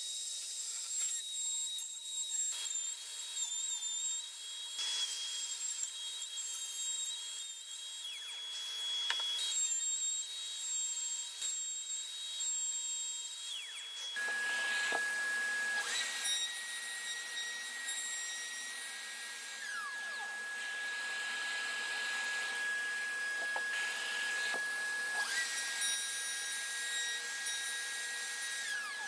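Makita trim router running at speed while cutting into red oak: a steady high whine with a rushing hiss. The whine drops to a lower steady pitch about halfway through.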